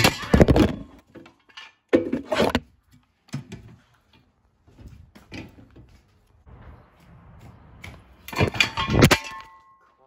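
Handling noise of a smartphone being picked up and moved around: separate thumps and clunks, with strong ones at the start, about two seconds in, and a cluster near the end.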